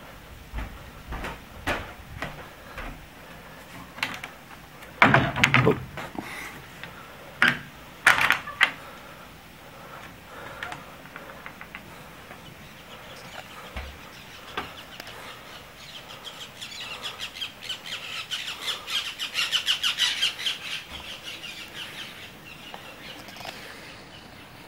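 A few sharp knocks, the loudest about five and eight seconds in. Later a bird calls with a fast chattering run of high chirps that builds and then fades over several seconds.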